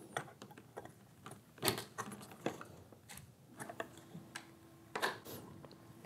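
Plastic TBUS DIN-rail bus connectors being handled and snapped onto a DIN rail: a run of small plastic clicks and taps, the loudest about one and a half seconds in and again near the end.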